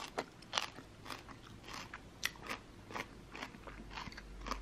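Mouth chewing a mouthful of crunchy dandelion-leaf kimchi with rice: irregular crisp crunches and wet mouth clicks, about three a second.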